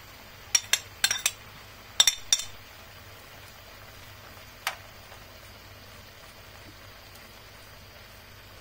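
A utensil clinking and knocking against a sac pan while the stew is stirred: a quick run of about six sharp clinks in the first two and a half seconds, then one more near the middle, over a steady faint hiss.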